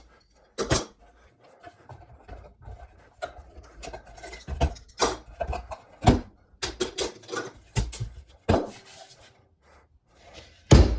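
Clamps being taken off a glued-up wooden vise and handled: a series of irregular metal clanks and clinks mixed with wooden knocks, the loudest clunk near the end.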